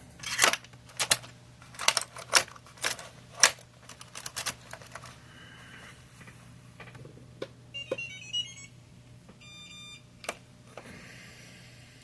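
A quick series of sharp clicks and clacks from small hard parts and tools being handled, about eight in the first few seconds. Then two short electronic beep patterns, the first warbling and the second a steady tone, about eight and nine and a half seconds in, over a low steady hum.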